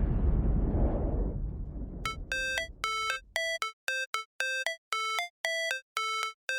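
A deep, noisy boom that fades away over the first few seconds, then background music of short electronic synth notes, about three a second.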